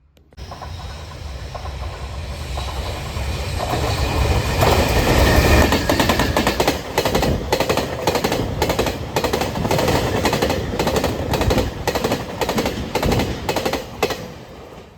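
Freight train passing close by, growing to its loudest about five seconds in. A rapid, even run of wheel clicks over the rail joints follows as the wagons go by, fading near the end.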